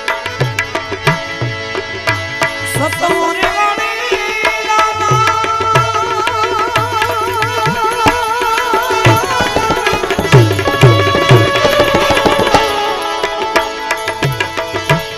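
Harmonium and tabla playing devotional music. The tabla's bass drum gives regular low strokes that bend down in pitch, and from about three seconds in long held notes with a wavering pitch come in over the harmonium.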